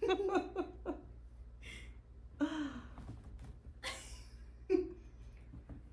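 Short, breathy human vocal sounds: a few quick syllables right at the start, a breathy gasp about two and a half seconds in, and another brief one near the end.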